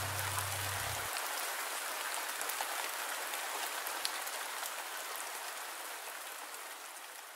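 Steady rain falling, a dense hiss with scattered drop taps, fading out slowly toward the end. A low held note from the cello piece cuts off about a second in.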